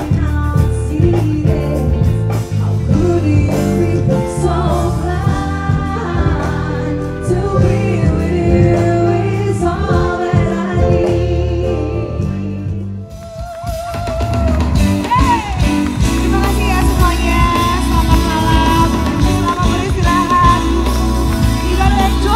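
Band music with a lead vocal over bass and guitar. The music drops away briefly about thirteen seconds in, then a new passage starts.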